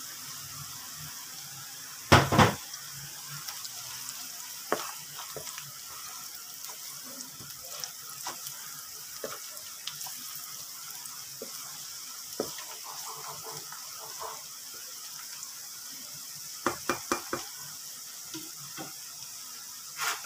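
Sliced onions frying in oil in a nonstick wok, a steady sizzle, as red chili powder, salt and turmeric are stirred in. A slotted plastic spatula scrapes and knocks against the pan: a loud knock about two seconds in, a few lighter ones, and a quick run of knocks near the end.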